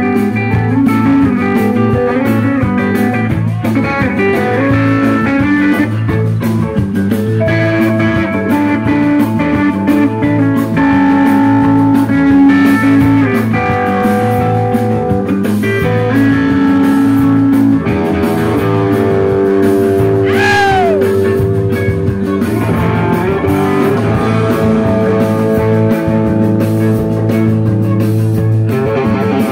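Live rock band playing loudly, electric guitar to the fore with held notes and one quick bend in pitch about two-thirds of the way through.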